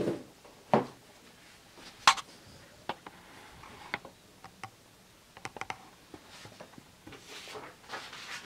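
Handling noises: scattered sharp clicks and taps, a quick run of several about five and a half seconds in, and a soft rustle near the end.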